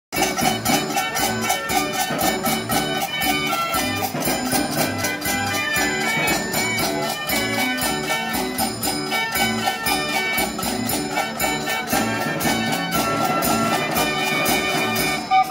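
Dutch street organ (draaiorgel) playing a tune: pipe melody and accompaniment over a steady beat.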